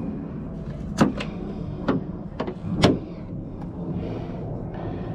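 Five or so sharp clicks and clunks over about two seconds as the VW Transporter's seized secondary bonnet latch is handled, over a steady low hum.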